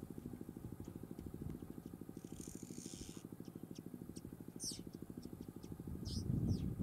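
Vehicle engine idling with a steady, rapid low throb.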